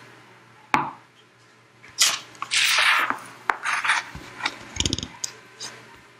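Objects being handled: a sharp click, then a loud scraping rub about two seconds in, followed by a string of clicks and knocks and a low thump.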